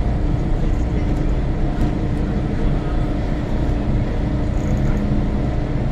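Cabin noise of an MTR M-Train electric multiple unit under way: a steady rumble of wheels and running gear with a low, even motor hum.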